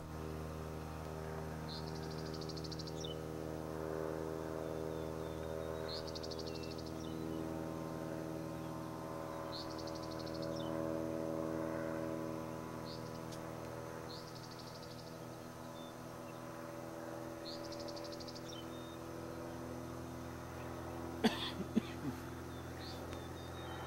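Distant drone of the Maule towplane's piston engine pulling the TG-3A glider on tow, a steady hum that swells slightly about halfway through. Insects rasp in short regular bursts about every two seconds, and there are a few knocks near the end.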